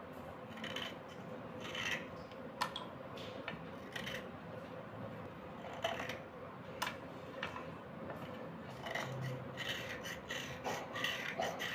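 A white slate pencil being scraped by hand: short, dry scraping strokes at irregular intervals, with a few sharp clicks among them.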